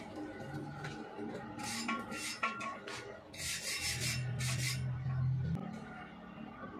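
Welding electrode rod scraped across a steel plate and weld bead: three short scrapes, about two seconds in and then twice more near the middle.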